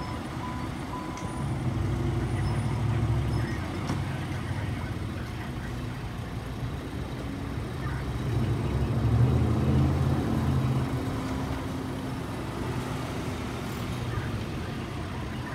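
Road traffic passing close by: low engine and road noise that swells twice, about two seconds in and again, loudest, around nine to ten seconds in as a pickup truck drives past.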